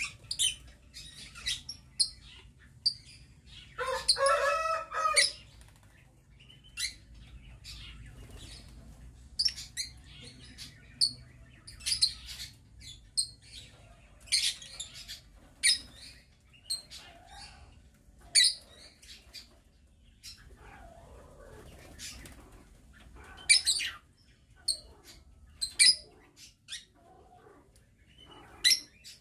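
Flock of lovebirds chirping: many short, shrill chirps scattered through, with one longer, lower call about four seconds in.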